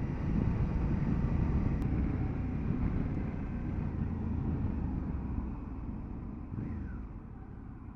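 Motorcycle running along a road, with engine and wind noise, gradually getting quieter through the stretch.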